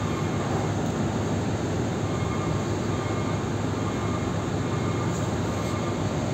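Steady low drone of heavy diesel engines with a hiss over it, level and unchanging, with a faint thin whine coming in about two seconds in.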